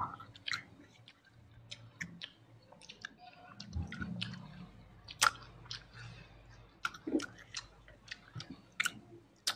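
Close-miked eating sounds: chewing and wet mouth noises, with a string of short sharp clicks at irregular intervals, the loudest about five seconds in. There is a dull low thump near four seconds.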